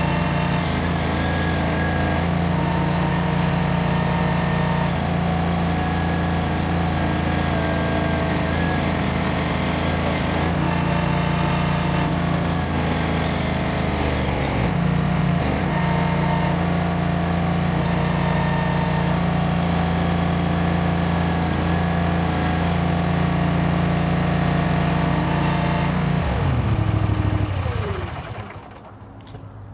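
Barreto 30SG hydraulic stump grinder running hard as its cutter wheel grinds into a large stump, the engine note dipping and shifting a few times where the wheel bogs in a full cut from too big a bite. Near the end the engine winds down and the sound drops away.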